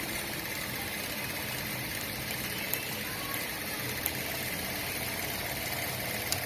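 Electric sewing machine running steadily.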